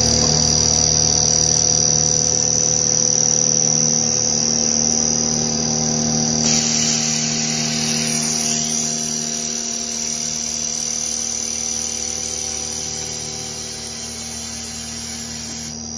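CNC milling machine cutting steel with an end mill: a steady whine of several held tones, with a hiss of cutting noise joining about six and a half seconds in, slowly getting quieter toward the end.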